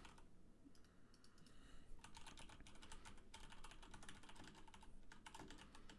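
Faint typing on a computer keyboard: rapid key clicks, with a brief pause near the start.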